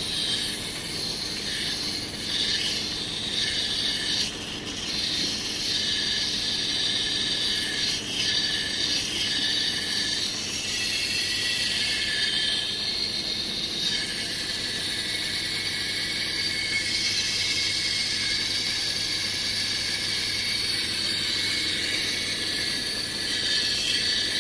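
Steady hiss of a pressure-washer water jet spraying through a diesel particulate filter to flush out the soot.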